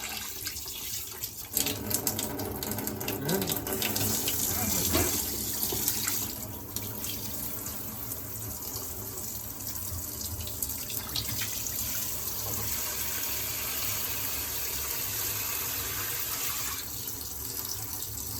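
Small filtered-water faucet running into a sink while a new carbon filter is flushed on its first use. The flow is uneven and spattery for about the first six seconds, then runs steadily.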